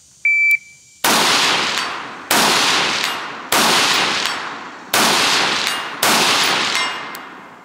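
A shot timer's start beep, then five rifle shots from an AR-style rifle, fired at a steady pace about a second and a quarter apart. Each shot trails off in a long echo.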